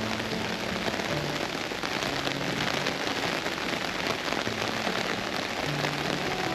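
Steady rain falling, a dense even hiss of drops, with soft background music faintly underneath.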